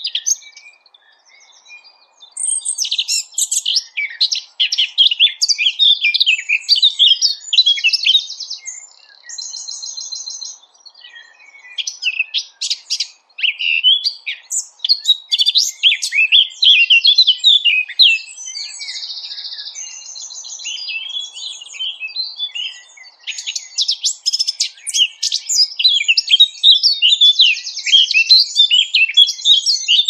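Small songbirds singing a dense, varied medley of fast high chirps, trills and buzzy rattling phrases. There is a short pause about a second in and another around a third of the way through.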